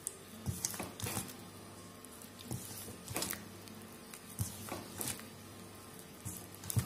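Thick cake batter being beaten by hand in a steel bowl: faint, irregular wet squelches and light slaps, several over a few seconds.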